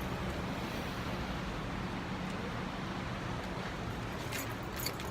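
Steady low drone of a car's cabin while it is being driven, engine and road noise with no one talking. A few small metallic clinks near the end.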